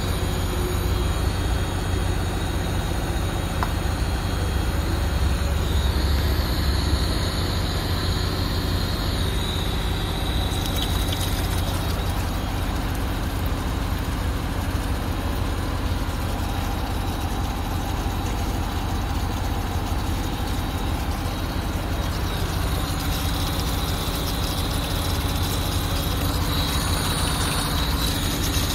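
Volvo Penta dosing unit's electric pump running steadily on bench power, a continuous low hum.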